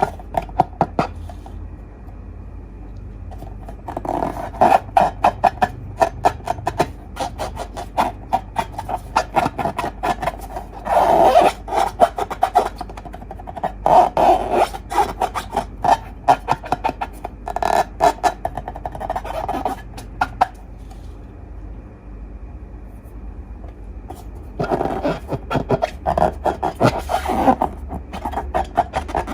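Slime being worked by hand, giving runs of rapid sticky clicks and crackles in bursts, with quieter stretches of a few seconds between them.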